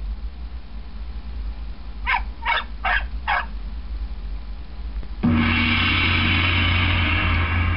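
Canned sound effects from an Android soundboard app played through external speakers: four short, evenly spaced sounds about a third of a second apart, then, about five seconds in, a loud sustained sound with a low hum that lasts about two and a half seconds.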